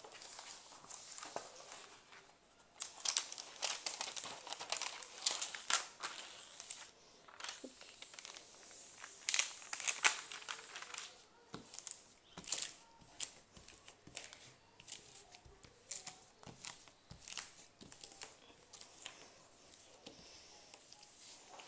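Clear plastic protective film on a diamond painting canvas crinkling and rustling as hands lift, smooth and bunch it up, in irregular crackly bursts.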